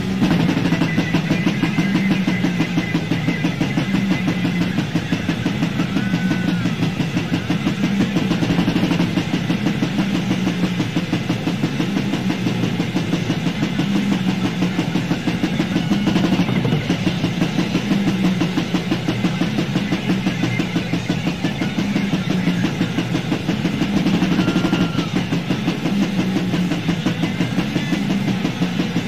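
Raw, lo-fi death/black metal from a 1990 demo tape: heavily distorted guitars and fast, relentless drumming at a rapid, even beat.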